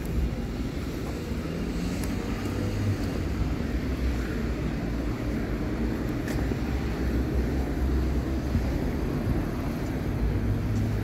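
City street traffic: cars driving past with a low rumble that swells a few times as vehicles go by.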